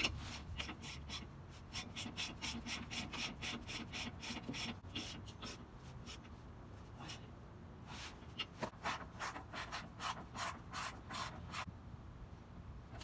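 Ratchet socket wrench with a 17 mm socket clicking fast and evenly as it tightens a shock absorber mounting bolt. It runs in two spells, with a pause of about two seconds in the middle.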